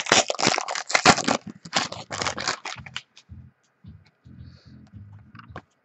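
A trading-card pack's wrapper being torn open and crinkled: about three seconds of dense, sharp crackling. Softer rustling follows as the cards are taken out and handled.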